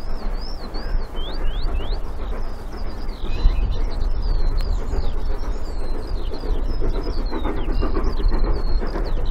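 Birds chirping and singing over a distant steam locomotive working a train uphill, with a low steady rumble underneath. The locomotive's exhaust beats come through more clearly in the last couple of seconds.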